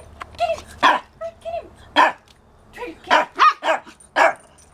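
Small dogs barking during rough play: about six short, sharp barks, with a quick run of three in the second half and softer yips between.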